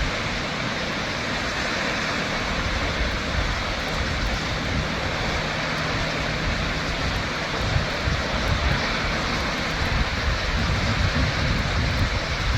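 Shoshone Falls, a large waterfall, giving a steady rush of falling water, with an uneven low rumble underneath that grows stronger near the end.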